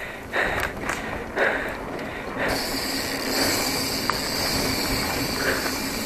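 A mountain bike rolling fast down a dirt trail: wind rushing over the action camera's microphone, with tyre noise and a few knocks and rattles from the bike over bumps in the first couple of seconds. About two and a half seconds in, the rush becomes steadier and louder.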